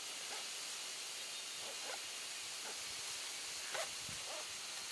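Steady outdoor hiss, like wind, with faint short animal calls now and then, five or six over a few seconds, and a soft low thump about four seconds in.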